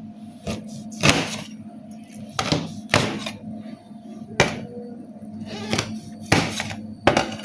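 Kitchen utensils knocking as chopped ingredients are added to a bowl: a string of about nine sharp knocks and thuds at irregular intervals, some with a short scrape, over faint steady background music.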